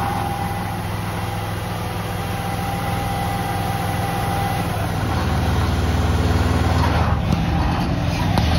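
Engine of a hydraulic asphalt spray-bar rig running steadily at idle while the bar's nozzles spray, with a hiss over the hum. A thin whine stops about halfway, and the engine grows a little louder after that.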